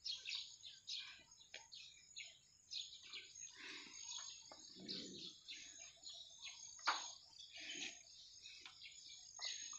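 Quiet handling sounds of duck eggs being gathered from a straw-strewn dirt floor into a basin: scattered light clicks and rustles, the sharpest about seven seconds in. Faint chirping runs behind.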